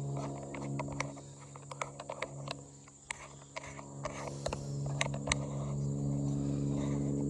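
Large wasps buzzing in a swarm, a steady low hum with overtones, which the walker takes for cicada killers. A steady high insect drone runs behind it, and brush crackles and snaps underfoot in many sharp clicks.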